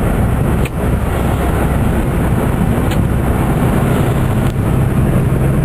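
Cabin noise inside a moving 1997 Geo Metro: the engine's steady low hum under road noise.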